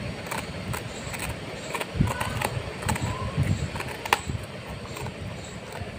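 Labrador puppy chewing a hard, dry piece of bread, giving irregular sharp crunches, loudest about two and four seconds in, over a steady low rumble.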